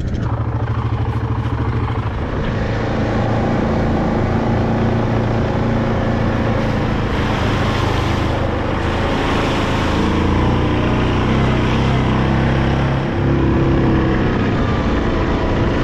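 Yamaha Grizzly 700 ATV's single-cylinder four-stroke engine running steadily as the quad rides along the trail, with rolling noise from the ground under it.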